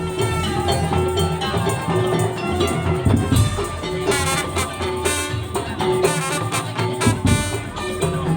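Madurese tong-tong (daul) ensemble playing an instrumental langgam: a steady beat of drums and struck percussion under a pitched melody.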